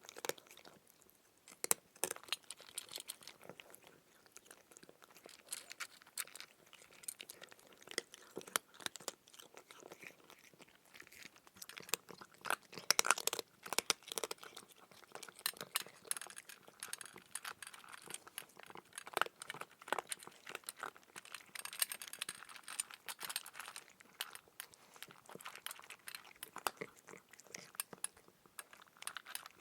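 Crunchy chewing and biting sound effect: a continuous run of irregular wet crunches and crackles, like food being bitten and chewed.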